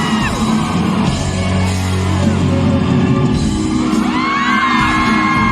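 Live pop-rock band playing loudly with drums and singing, amplified in a large hall. From about four seconds in, high held screams rise over the music.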